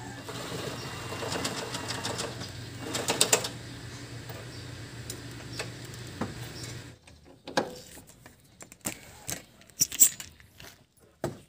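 Socket ratchet wrench clicking in quick runs while loosening engine-support bolts, over a steady low hum. After about seven seconds the hum stops and only a few separate sharp clicks remain.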